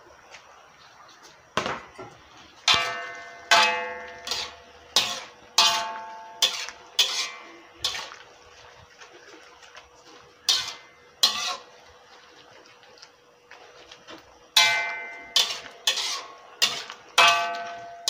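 Spatula striking and scraping a metal wok while stir-frying pork skin and mustard greens, each strike ringing briefly. The clanks come in runs of about two a second, with two short pauses.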